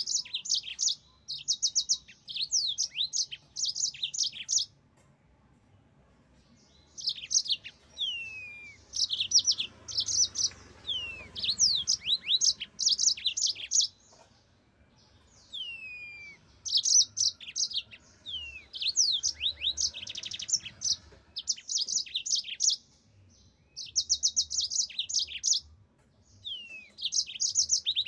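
Yellow-fronted canary (mozambik) singing in long, lively phrases of rapid high trills mixed with quick down-slurred whistled notes. The phrases last a few seconds each, with short pauses between them.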